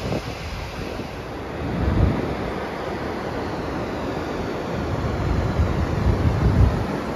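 Wind buffeting the microphone over the wash of surf on the shore, gusting louder about two seconds in and again near the end.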